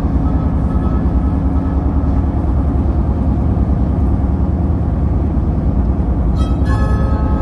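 A car driving, with a steady low road rumble. Sustained musical tones sound faintly over it near the start and come back near the end.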